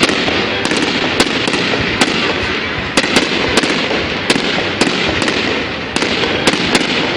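Fireworks going off without a break: a dense, continuous crackling punctuated by frequent sharp bangs.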